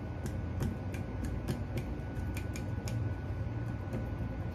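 Kitchen tongs clicking and tapping lightly, two or three times a second, as they press thyme and salt onto raw lamb chops on a wire cooling rack, over a low steady hum.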